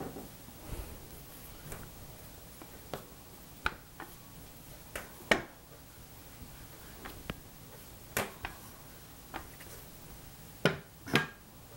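Scattered light knocks and taps as a metal rolling pin and other cake-decorating tools are handled on a work mat, with two louder knocks close together near the end.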